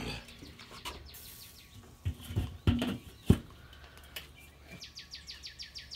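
Steel domed lid of a Weber Smokey Mountain smoker being set onto the cooker: a few clanks and knocks, the loudest about three seconds in. Near the end, a bird trilling, a fast run of repeated falling chirps.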